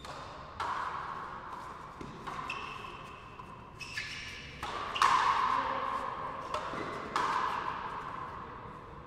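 Frontenis rally: the hard rubber ball is struck by strung rackets and smacks against the front wall about six times, and each hit echoes long in the big indoor court. The loudest hit comes about halfway through.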